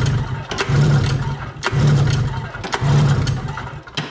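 Polaris Indy snowmobile's Fuji two-stroke engine being cranked by its recoil pull-starter, spark plugs out, during a compression test. Each pull starts with a click and spins the engine over for most of a second, about once a second, to pump up the compression gauge. A last click comes near the end.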